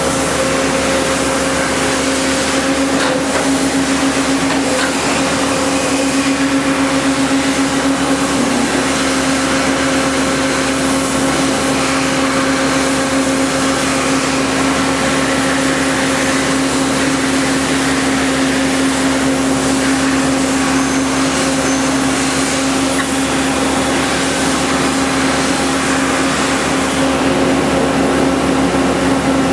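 Toyoda FH630SX horizontal machining center running: a steady mechanical hum with a constant whine over a wash of machine noise.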